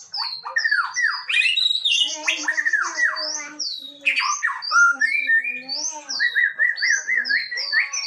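Male white-rumped shama singing a fast, varied song of rich whistles, trills and sharp downslurred notes, one phrase running into the next.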